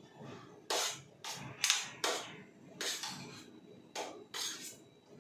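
Steel spoon clinking and scraping against a stainless steel plate while rice is scooped up: about seven or eight sharp, irregularly spaced clinks.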